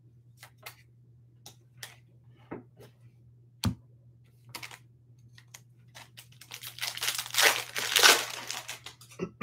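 Foil wrapper of a Bowman Chrome baseball card pack being handled: scattered small crinkles and ticks, then a longer, louder spell of tearing and crinkling near the end as the pack is torn open.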